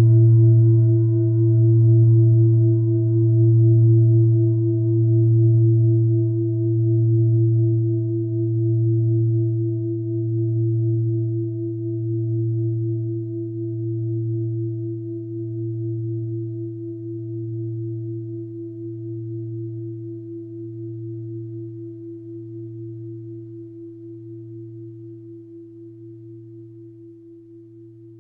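A mindfulness bell ringing out after a single strike, one long low tone slowly dying away with a slow, even wavering in loudness about every second and a half to two seconds. Its higher overtones fade first, leaving the low hum.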